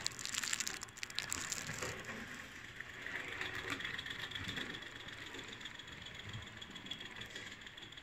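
Live-steam 1:19-scale model of Talyllyn Railway No. 1 running on its track: a steady hiss and rattle of steam and wheels. It is louder and crackly in the first two seconds, then settles.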